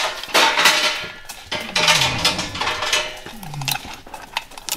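Steel chains of a hand-operated chain hoist rattling and clinking as the hoist is worked, loudest near the start and about two seconds in.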